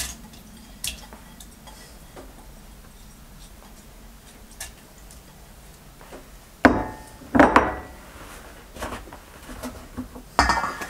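Quiet handling of a stainless-steel mixer-grinder jar and dishes: soft clicks, then two sharp clanks with a brief metallic ring about two-thirds of the way through, and another clatter near the end.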